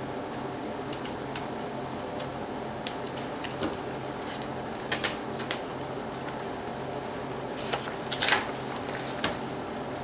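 Scattered light clicks and scrapes from a small screwdriver and fingers working along the edge of a laptop's LCD panel and its metal frame, with a short burst of crackling about eight seconds in. A steady low hum runs underneath.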